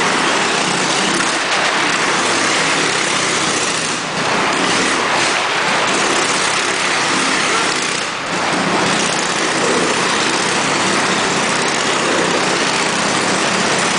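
Motorcycle engine running hard as the bike circles the vertical wooden wall of a wall of death. The sound is loud and steady, with brief dips about four and eight seconds in.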